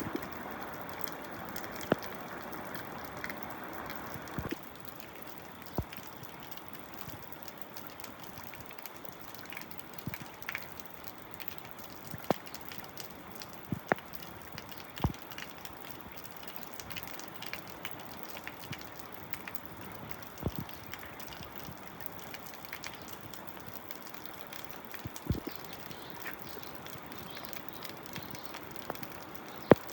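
Dripping water: single sharp drops fall at irregular intervals over a soft steady hiss. A louder rushing layer under the hiss cuts off about four and a half seconds in.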